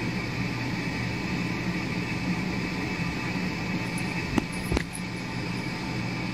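A steady mechanical hum and hiss, with two short clicks close together about four and a half seconds in.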